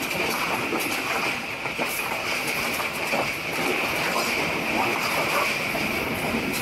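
Tezgam express train running along the track: a steady rolling noise of wheels on rails with a constant high hum, and no distinct clickety-clack beat.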